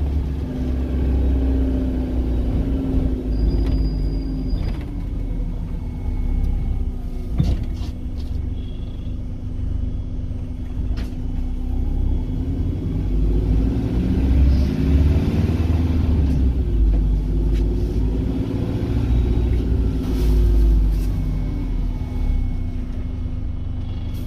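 Bus engine and road rumble heard from inside the passenger cabin of a moving London bus, the engine note rising and falling as it speeds up and slows. A short high beep about three seconds in, and a few knocks and rattles.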